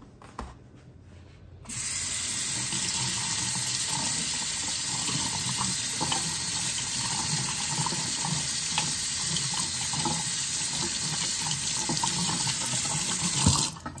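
Kitchen faucet running into a stainless steel sink, the stream splashing over a Roomba HEPA filter held in the hands as it is rinsed. The water comes on suddenly about two seconds in, runs steadily, and is shut off just before the end.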